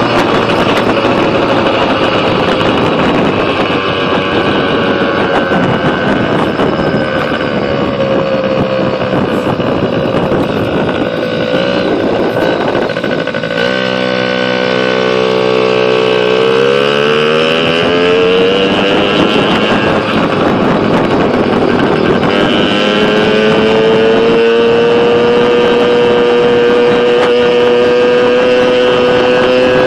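Pit bike engine running while being ridden. Its pitch sinks to a low steady note partway through, rises sharply as it accelerates, then holds at a higher steady pitch that creeps upward. A dense rushing noise covers it through the first half.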